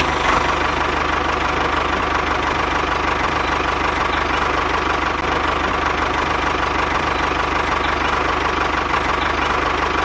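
Tractor engine running steadily with a fast, even chug.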